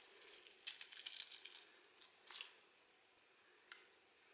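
Faint crackling of eggshell being peeled by hand off a hard-boiled egg, most of it in the first second and a half, then a couple of isolated ticks.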